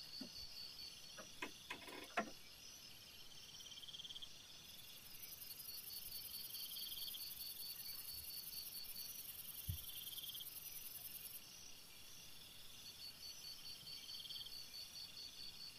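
Crickets and other night insects chirping steadily in pulsed trills, one trill swelling every few seconds. A few sharp clicks or knocks come about two seconds in, and a single dull thump near ten seconds in.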